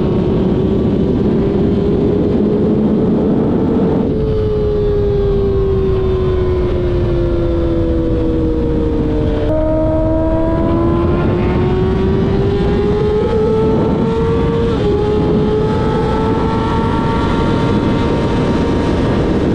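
2024 Kawasaki ZX-6R's 636 cc inline-four running through an M4 slip-on exhaust under way: the engine note climbs, drops suddenly about four seconds in as it shifts up, sinks slowly as the throttle eases, then climbs again from about halfway with another brief dip near the end. Heavy wind noise runs underneath.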